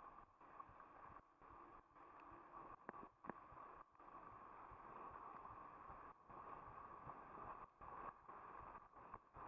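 Faint, muffled riding noise of a mountain bike rolling over a dirt track, with two short clicks about three seconds in.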